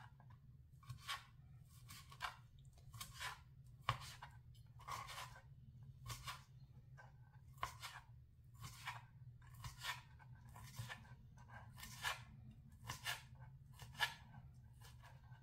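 Chef's knife cutting through cooked beef onto a plastic cutting board: short crunchy cuts at about one a second, over a steady low hum.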